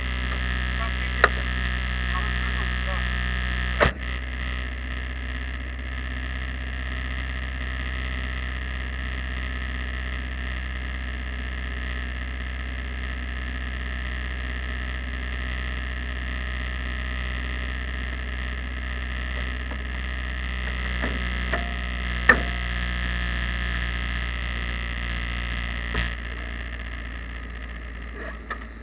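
Steady low hum with a few sharp clicks and knocks over it.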